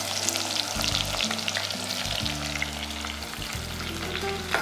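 Sliced onions frying in hot oil and ghee in a pressure cooker, a steady sizzle full of small crackling pops.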